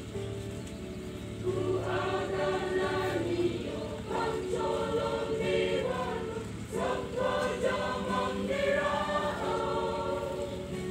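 Mixed choir of men and women singing in parts, holding chords in phrases with short breaks between them.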